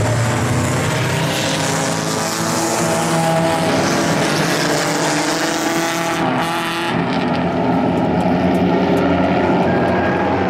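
A pack of pure stock race cars running hard around a paved oval, several engines at once with overlapping notes that rise and fall as they pass.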